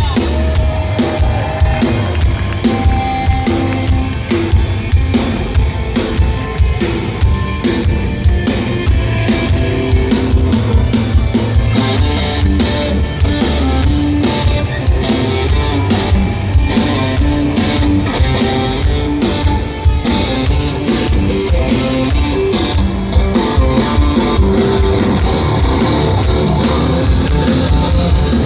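A hardcore band playing live, loud and fast: distorted electric guitars over a pounding drum kit, with no vocals.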